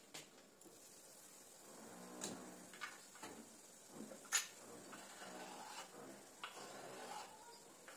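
Quiet kitchen handling: light clicks and knocks as a glass pot lid is set down on the stove and a knife scrapes diced vegetables off a wooden cutting board into a pot. The sharpest knock comes a little past halfway.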